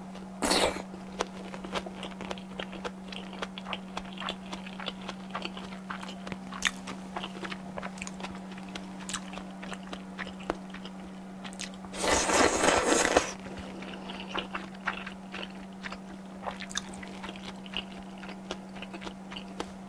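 Close-miked chewing of salmon sushi: wet mouth sounds with many small clicks. About twelve seconds in, a loud slurp of udon noodles lasting just over a second.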